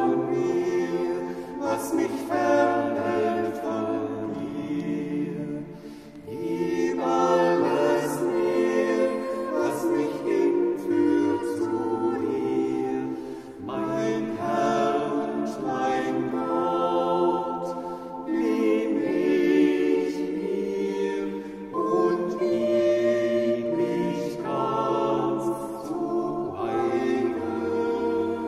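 Choir singing a Taizé chant together in several voice parts. The short refrain repeats in phrases a few seconds long, with brief breaths between them.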